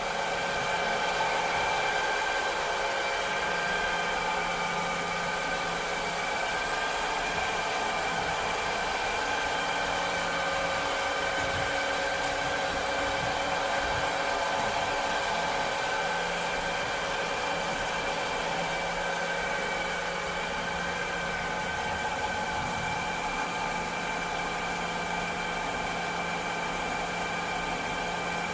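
A cleaning robot running steadily: an even motor hum with several steady tones over a hiss, unchanging throughout.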